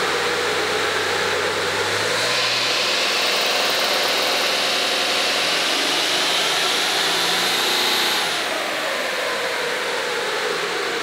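Cummins turbo diesel of a 2012 Ram making a full-load pull on a chassis dyno, its S480-over-stock-VGT compound turbos whistling with pitch climbing for several seconds, then falling away about eight seconds in as the pull ends.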